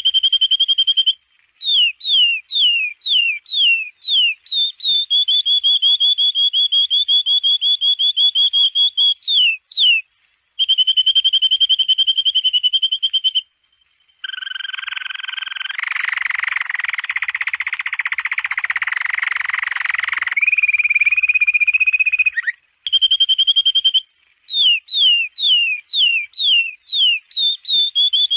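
Domestic canary singing: rapid trills held on one high pitch, alternating with runs of quick descending whistled notes at about two a second. In the middle comes a harsh, buzzy rolled phrase lasting about six seconds.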